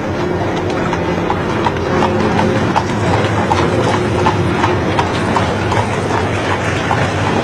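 Horse hooves clip-clopping on a paved street, several horses, a steady overlapping run of hoofbeats from horse-drawn carriages.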